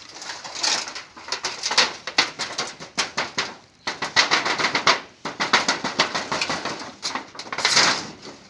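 Dense, irregular crackling and clattering in several bursts with short breaks: food roasting and being stirred on a hot metal sheet over a smoking wood fire.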